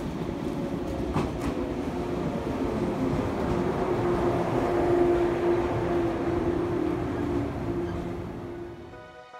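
Shinano Railway 115 series electric train pulling into the station platform and running slowly past close by: a rumble of wheels on rail with a steady tone over it. It grows louder towards the middle, then fades out near the end.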